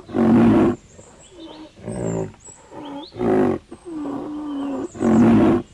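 Animal calls: four loud, pitched calls, each well under a second, with faint high squeaks between them.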